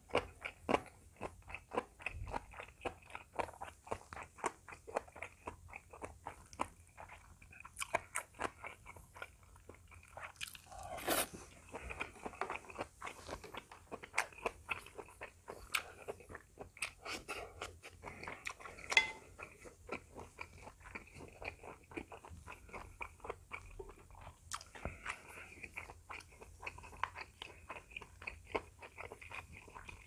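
A person chewing and crunching food, a dense run of short crunches and mouth clicks, with one sharper, louder click about two-thirds of the way through.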